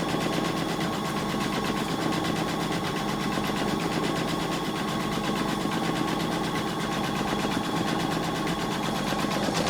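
Computerized embroidery machine stitching steadily, its needle running at a fast, even rhythm.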